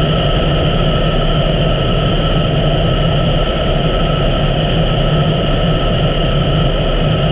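A 2017 Honda Africa Twin's parallel-twin engine running at a steady cruising speed, its drone mixed with a steady rush of riding wind.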